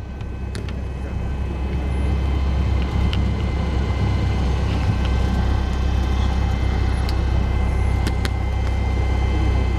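Cessna 172 Skyhawk's piston engine and propeller running steadily, heard from inside the cabin while taxiing, growing louder over the first couple of seconds as power comes up.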